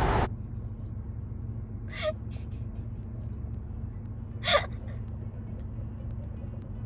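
Steady low hum of an idling vehicle heard from inside the car, with two short noisy bursts about two and four and a half seconds in.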